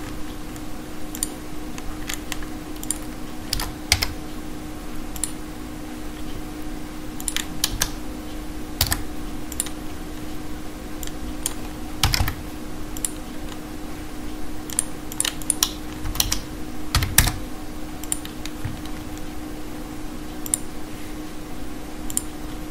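Computer keyboard being typed on in scattered, irregular keystrokes, over a steady low hum.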